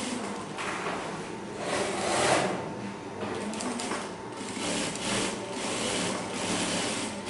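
JUKI single-needle industrial sewing machine stitching in short runs, starting and stopping several times as the fabric is guided under the needle.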